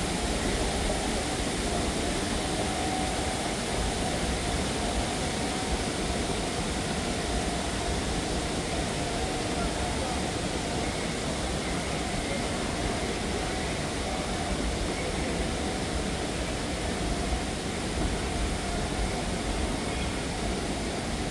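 Steady airport terminal ambience: a continuous hum and hiss of the large hall with indistinct voices of people.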